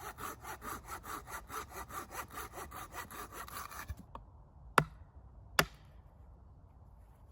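A hand saw cutting through wood with quick, even back-and-forth strokes for about four seconds. After it stops come three sharp knocks, the last two the loudest.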